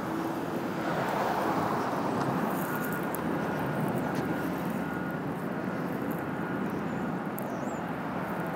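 Steady outdoor vehicle rumble, swelling a little a second or two in.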